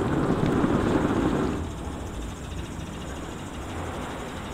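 Ford Ranger pickup running under load as it tows a heavy gooseneck trailer through snow. The sound is louder for about the first second and a half, then drops to a lower steady rumble.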